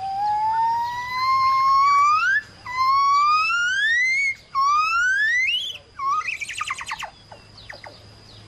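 A series of long whistled calls, each sliding upward in pitch and each pitched higher than the one before, followed a second or so later by a rapid run of short falling notes. A thin steady high tone runs underneath.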